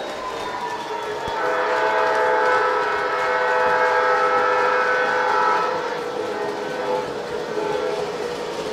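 Model train running on its layout, its sound system blowing a long multi-note horn that starts about a second in and lasts about four seconds.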